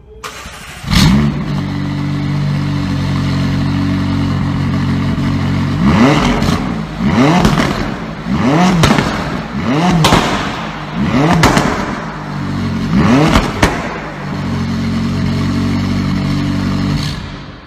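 A car engine flares loudly about a second in, then runs steadily. It is blipped about six times in a row, each rev climbing and falling back, then settles to a steady run again before cutting off near the end.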